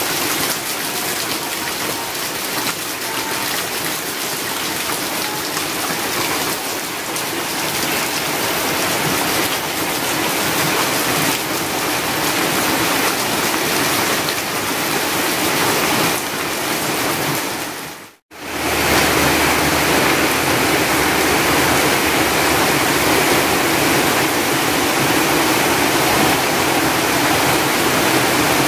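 Heavy rain falling steadily, an even hiss of downpour. It cuts out for an instant about eighteen seconds in and comes back a little louder and fuller.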